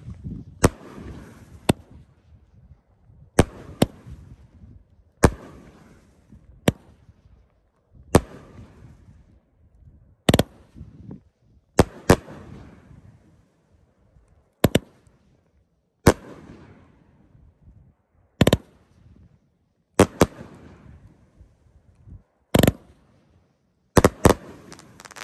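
A 500-gram consumer firework cake firing its shots one after another: sharp bangs about every two seconds, some in quick pairs, each trailing off before the next.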